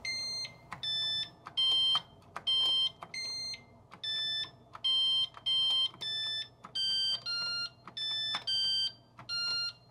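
A Tandy 102 portable computer's built-in beeper plays a simple melody as keys are pressed in a BASIC piano program. It sounds about fourteen buzzy electronic notes of changing pitch, each about half a second long, one after another.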